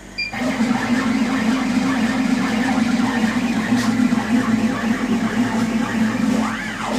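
Laser cutter's gantry tracing a jigsaw-puzzle vector with the laser not firing: stepper motors whirring and the head rattling as it moves, starting right after a short beep. Near the end the motor pitch rises and falls briefly as the head changes speed.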